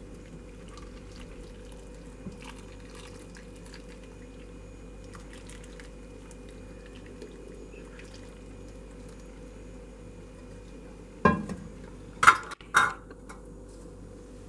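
Sugar syrup poured from a pan over apple pieces in a glass dish, trickling and dripping faintly over a steady low hum. About eleven seconds in come three sharp knocks, the loudest sounds.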